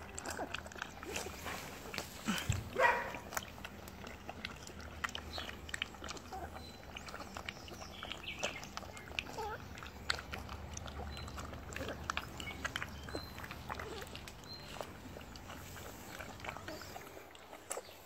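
Two month-old Doberman puppies lapping milk from a plastic bowl: a steady stream of small wet clicks and slurps. About two and a half seconds in there is a thump and a short, louder sound.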